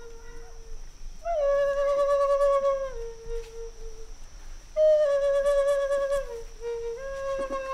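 Native American-style wooden flute playing slow phrases of long held notes. Each phrase opens with a short lift in pitch, then steps down to a lower sustained note.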